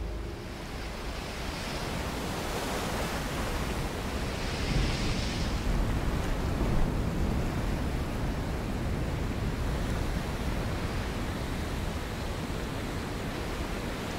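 Ocean surf washing and breaking, a steady rushing noise that swells a little about a third of the way in.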